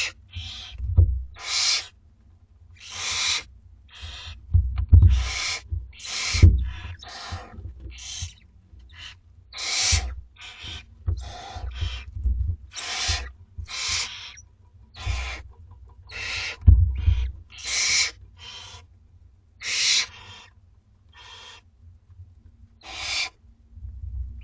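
Barn owl chicks giving their begging calls: many harsh, hissing screeches, each under a second long, at an uneven pace and overlapping at times. Low thuds of movement sound beneath them.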